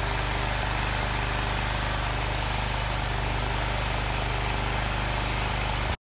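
Toro Wheel Horse 520H's Onan P220 twin-cylinder engine running steadily at an even speed. The sound cuts off suddenly near the end.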